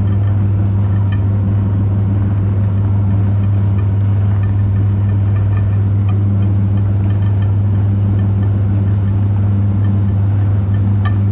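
Electric meat grinder's motor running with a steady low hum, with a few faint clicks over it.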